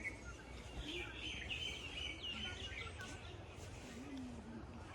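Small birds chirping in a quick run of high tweets from about one to two and a half seconds in, with a few more near the end, over a steady low outdoor background noise.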